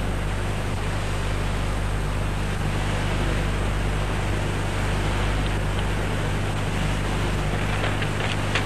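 Steady hiss with a low, unchanging electrical hum from a microphone and public-address setup.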